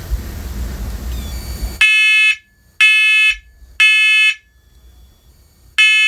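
First Alert SA511 first-generation Onelink smoke alarm sounding its test alarm: after a low hiss and rumble, loud shrill beeps start about two seconds in, three half-second beeps a second apart, a pause, then the next set of three begins near the end. This is the temporal-three evacuation pattern, set off by the test button.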